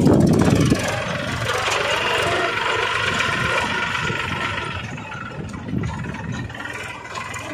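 Homemade mini tractor's small motor running steadily, loudest as it begins and slowly getting quieter.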